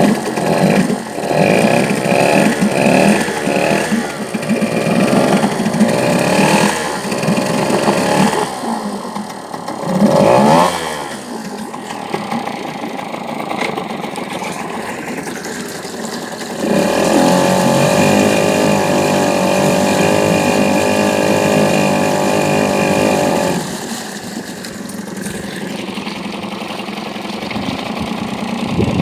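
1970s Yamaha 3.5 hp two-stroke outboard motor running, its speed uneven at first, with a quick rev up and back down about ten seconds in. It then holds a faster, steady speed for about six seconds before throttling back to a slower steady run.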